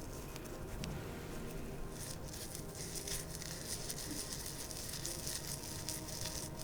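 Close-miked oily hands rubbing and massaging, a soft wet crackle and squish that grows brighter about two seconds in.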